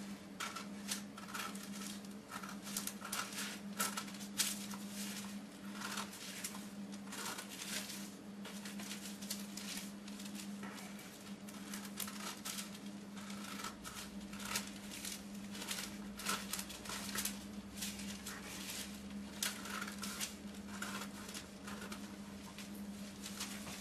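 Scissors cutting through three stacked sheets of parchment paper: a long run of short, irregular snips with crisp paper rustling, over a steady low hum.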